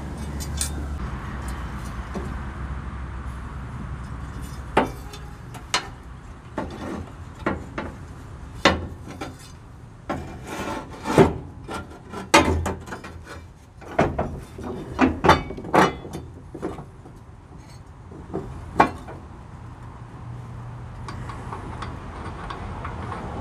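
Irregular metal knocks and clinks as a riding mower's cutting blade, its bolt and a socket are handled and fitted back onto the spindle under the deck, thickest through the middle of the stretch. A steady low hum runs underneath.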